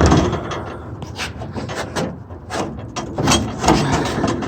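Window glass being worked up inside a Task Force truck's steel door: irregular scraping and rubbing with a dozen or so sharp knocks as the glass and its channel catch against the door.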